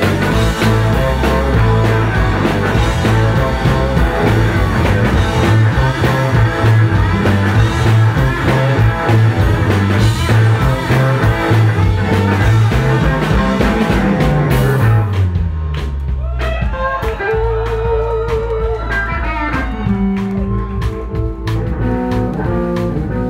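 Live electric blues band, two electric guitars with bass guitar and drum kit, playing loudly. About fifteen seconds in, a falling bass line leads into a quieter, sparser passage with a wavering held note and single bass notes.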